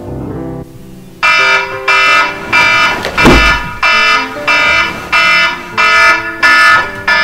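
Mobile phone alarm going off beside the bed: a loud tone pattern repeating a little under twice a second, starting about a second in after soft piano music fades. A single thump about three seconds in.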